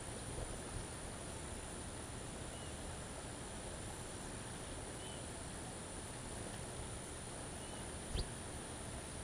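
Steady outdoor hiss with a thin, steady high whine, over which faint short bird chirps come three times, and a single sharp tick sounds near the end.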